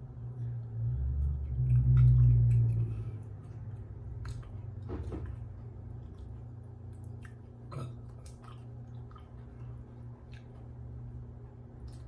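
A person chewing instant noodles close to the microphone, with small wet mouth clicks scattered throughout. A low rumble swells and fades about one to three seconds in, over a steady low hum.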